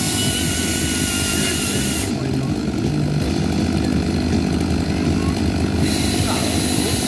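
Two-stroke chainsaw running while carving wood. Its high, hissing edge dulls for about four seconds in the middle, then comes back.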